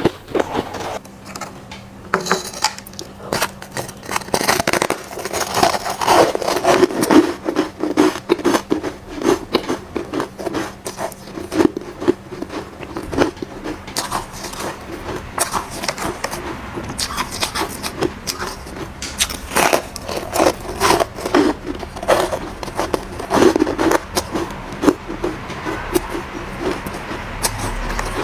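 Soft, powdery ice being bitten and chewed close to the microphone: a dense run of crisp crunches and crackles, with a spoon scraping through shaved ice.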